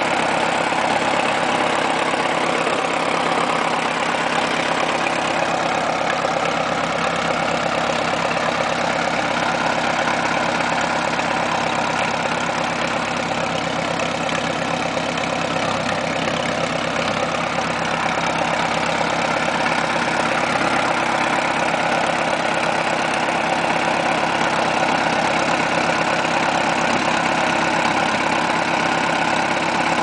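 Vintage tractor engine running steadily at a constant speed, driving a circular sawmill through a long flat belt. The saw runs free with no cut heard.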